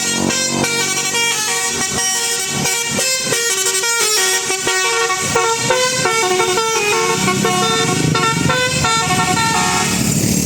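Bus 'telolet' horn, a set of musical air horns, playing a quick tune of short stepped notes. Near the end the tune stops and engine noise takes over.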